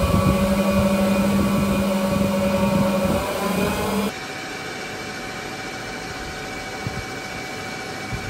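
Vertical machining center spindle running steadily. For the first four seconds it is the spindle before its bearing replacement, loud with a steady low hum and a higher whine. It then switches abruptly to the same spindle on new bearings, much quieter, an even hiss without the hum.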